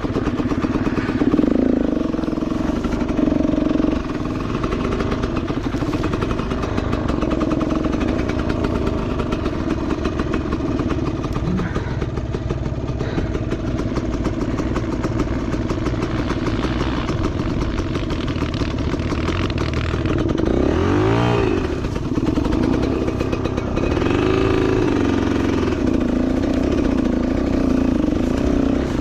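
Enduro motorcycle engine running steadily under throttle. Its pitch rises and falls with sharp revs about three-quarters of the way through, then once more shortly after.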